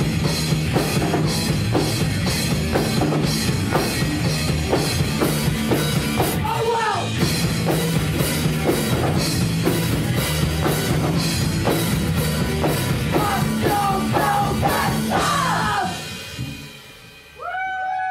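Punk rock band playing live: pounding drum kit and loud electric guitars at a fast, steady beat. The song stops about sixteen seconds in, and a held guitar tone rings out near the end.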